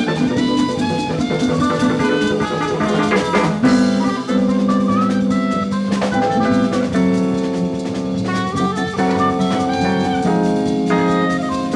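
Jazz quintet playing: a drum kit keeping time with cymbals and fills under guitar, reeds, keyboards and bass. About four seconds in, the band settles into long held chords.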